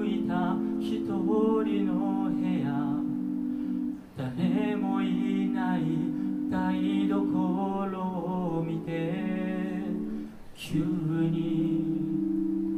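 Five-voice a cappella group of men and women singing: backing voices hold sustained chords under a lead melody. The singing pauses briefly about four seconds in and again near ten seconds before the next phrase.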